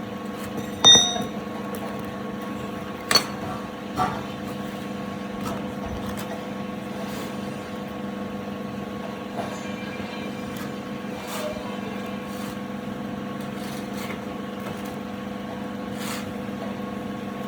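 Steady hum of workshop machinery with a few sharp metal knocks over it; the loudest, about a second in, rings briefly with a high metallic tone.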